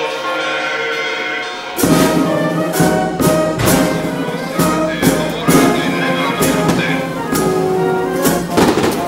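Bells ringing, then about two seconds in a festival brass band comes in loudly, with trumpets, trombones and regular drum and cymbal strikes.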